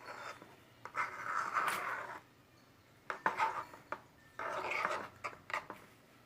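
Slime being stirred in a small plastic pot, the utensil scraping and rubbing against the pot in three bursts, with a few sharp clicks as it knocks the sides.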